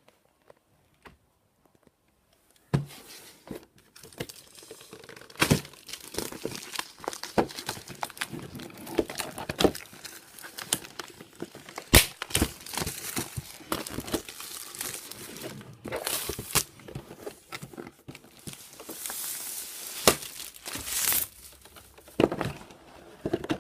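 Packaging of a trading-card box set being torn open and handled: crinkling and tearing with scattered sharp clicks and knocks. It starts about three seconds in, after a near-silent pause.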